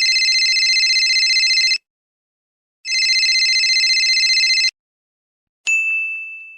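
Telephone ringing twice, a rapid trilling ring of about two seconds each with a short pause between. Near the end a single bright 'ding' sound effect strikes and rings out, fading.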